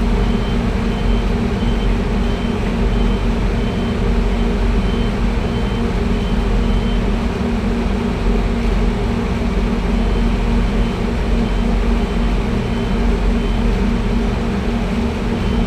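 Heavy construction vehicle's engine running steadily with a deep rumble, while a reversing alarm beeps about twice a second, falling silent for a few seconds in the middle before starting again.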